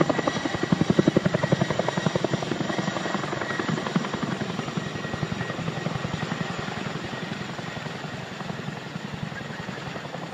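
Boeing CH-47 Chinook tandem-rotor helicopter flying past, its rotors beating in a fast, even rhythm that fades steadily as it moves away.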